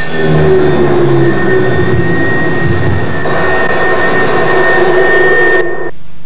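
Loud, sustained amplified noise drone from a rock band on stage, with a steady high whine running through it. It cuts off suddenly about six seconds in, leaving a low hum.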